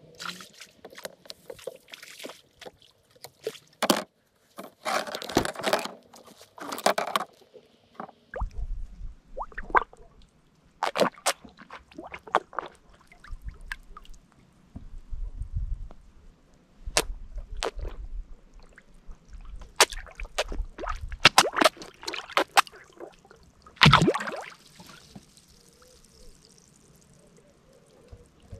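Carp slurping and splashing at the surface as they take floating bread: a scattered run of sharp sucking splashes, the biggest about 24 seconds in, with low wind rumble on the microphone in the middle stretch.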